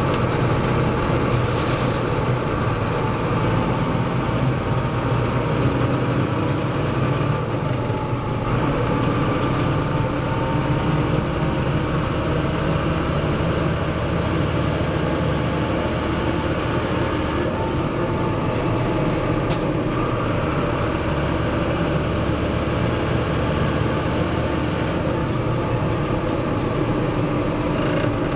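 Fendt Favorit 822 tractor's diesel engine running steadily under load, with a high turbocharger whistle. The whistle rises and holds three times, breaking off briefly each time before it returns.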